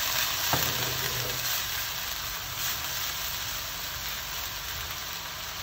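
Grated onion and whole spices sizzling steadily in hot oil in a nonstick pan as a silicone spatula stirs them, with a single light click about half a second in.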